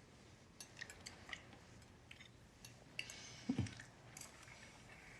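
Faint, scattered clicks and clinks of cutlery on dinner plates, with a louder short clatter about three and a half seconds in.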